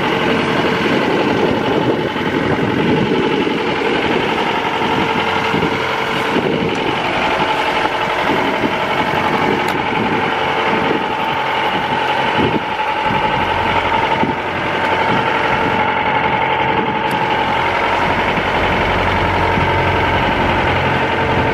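A sailboat's inboard engine running steadily as the boat motors under way once the wind has died, a constant hum with a steady tone.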